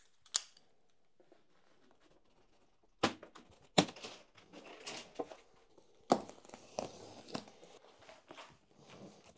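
Unpacking a strapped shipping crate: sharp knocks and clacks about three, four and six seconds in as the plastic strap and plywood lid come off, among scraping and tearing of cardboard and packing tape.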